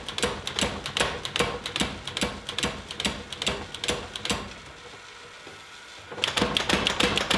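Power hammer striking hot steel in rapid, even blows, about four a second, first through a hand-held top tool that necks the bar. The blows stop about four and a half seconds in and resume slightly faster about six seconds in, with the bar now struck directly between the dies.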